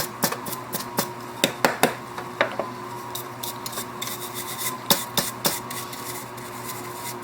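A brush scrubbing over printer mechanism parts to clean out grease and debris: irregular scratchy strokes with many sharp clicks.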